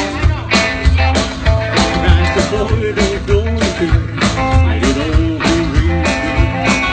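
Live rock and roll band playing: upright bass, acoustic guitar and drums, with a steady beat of about two drum hits a second.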